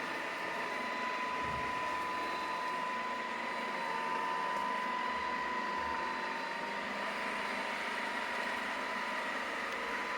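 Neatsvor X600 robot vacuum running: a steady rush of its suction fan with a constant high-pitched motor whine.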